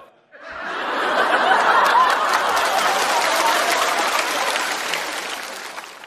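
Studio audience laughing and applauding at a punchline. It starts about half a second in, builds over the next second, and fades out near the end.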